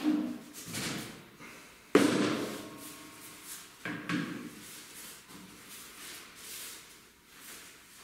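Handling knocks from a cheese mould and its follower on a cutting board, with a sharp knock about two seconds in and a smaller one about two seconds later. Cloth rustles in between.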